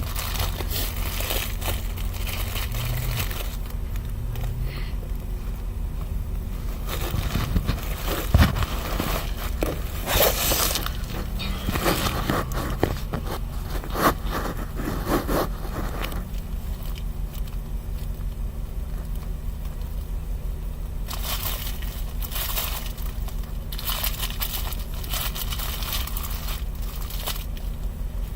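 Steady low hum of a car cabin, with bursts of crackling, crinkling handling noise twice: from about a quarter of the way in to past the middle, and again near the end.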